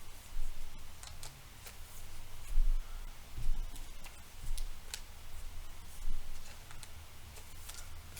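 Trading cards being handled and slid into plastic sleeves: irregular light clicks and taps, with a few soft thumps.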